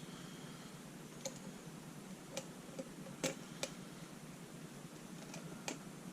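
Faint, irregular metallic clicks of a lock pick and tension wrench working the pins of a Medeco Biaxial lock, about seven small ticks spread unevenly. The pins are being lifted and rotated to find the sidebar gates while the lock sits in a false set.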